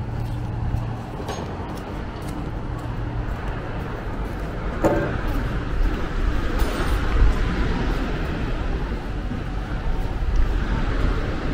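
Street traffic: a motor vehicle's engine running amid a steady low rumble of traffic, with a short voice about five seconds in.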